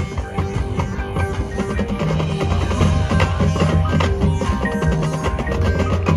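Marching band playing, with drums and mallet percussion over held low notes.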